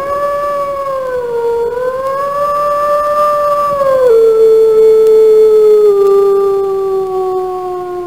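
A wolf howling: one long call that rises into a steady note with a slight dip and recovery. About four seconds in it drops suddenly in pitch, then slides slowly lower until it ends.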